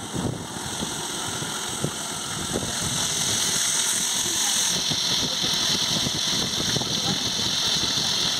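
Seafood deep-frying in a wok of hot oil: a steady sizzle that gets louder about three seconds in.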